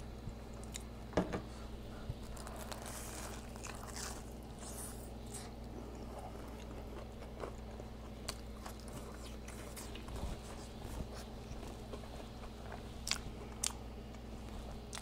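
Close-miked chewing and biting of a Hot Cheeto-crusted fried burrito and french fries: soft, scattered mouth clicks and crunches, with two sharper crunchy clicks near the end.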